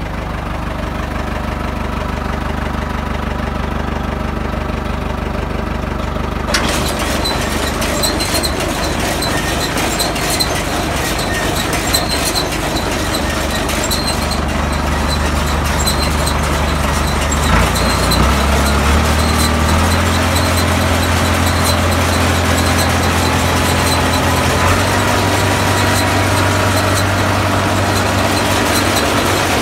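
Tractor engine running to drive a New Holland 848 round baler; about six seconds in, the baler's PTO-driven mechanism starts up and adds a steady mechanical whir with a faint repeating tick. The engine note steps up in pitch about eighteen seconds in.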